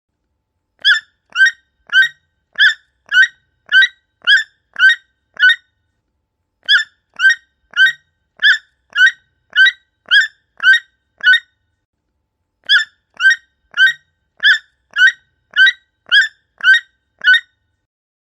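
Toucan calling: three runs of nine short, hoarse calls, about two a second, with a pause of a little over a second between runs.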